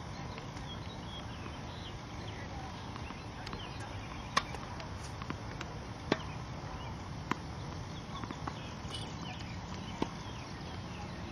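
Tennis balls struck by racquets and bouncing on the court during a practice rally: single sharp pops every second or two, the loudest about four and six seconds in, over a steady low background rumble.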